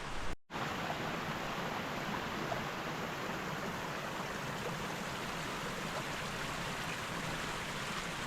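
Steady rush of a hill stream's running water, broken by a brief dropout about half a second in.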